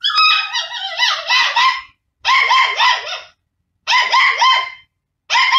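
Small puppy yapping in high-pitched runs of four or five quick yaps, with short pauses between the runs, barking at its own reflection in a mirror.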